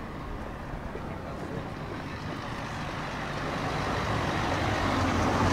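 A road vehicle approaching along the street, its engine running and growing steadily louder over the last two seconds as it comes close.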